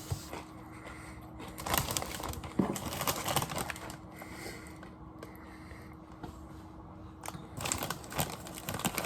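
Crunchy chips being bitten and chewed close to the microphone, in two bouts of crackly crunching.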